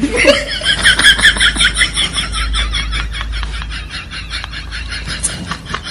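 A comedy sound effect: rapid, high-pitched chattering, about ten pulses a second, held for about six seconds before it cuts off.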